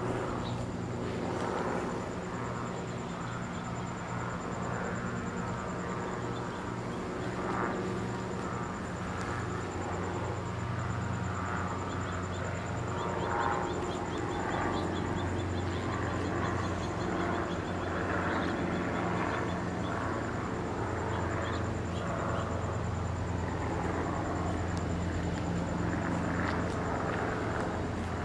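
Ducati 749's L-twin engine idling steadily, a low even note that grows somewhat fuller about a third of the way in.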